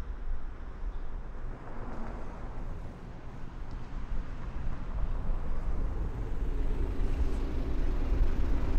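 City street traffic: a low, steady rumble of cars going by, growing louder toward the end.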